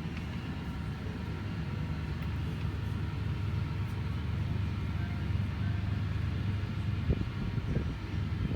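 Low, steady rumbling shop background noise, with a couple of soft thumps about seven seconds in.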